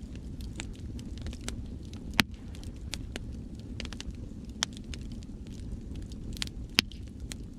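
Wood fire crackling with many sharp pops, two louder snaps about two seconds in and near the end, over a steady low rush of sea waves.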